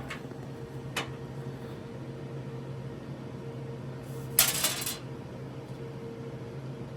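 Small hardware being handled while the quick-turn knob and its lock parts are fitted to a laser cabinet door: a single sharp click about a second in and a short clatter of small parts around four and a half seconds in, over a steady low hum.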